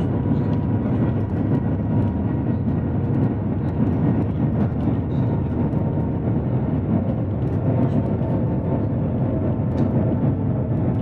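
Shanghai Transrapid maglev train running at speed, heard inside the passenger cabin as a steady low rumble with a faint steady hum above it.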